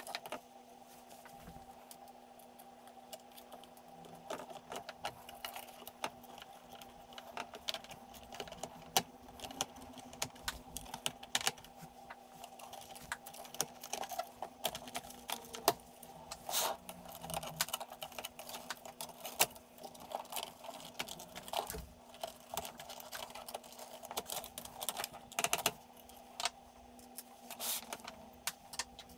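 Irregular light clicks and knocks of plastic and metal parts being handled as the Amstrad CPC464's keyboard assembly, with its metal backplate, is fitted into the plastic top case. A faint steady hum runs underneath.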